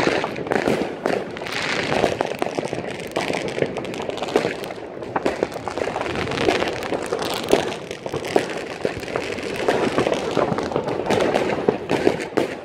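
Fireworks and firecrackers going off all around, a continuous dense crackle of irregular bangs and pops with no pause.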